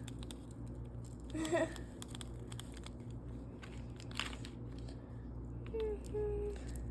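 Quiet handling noises at a table, faint crinkles and clicks with one sharper crackle a little after four seconds, over a steady low hum. A short voice sound comes about a second and a half in and a brief hummed tone near the end.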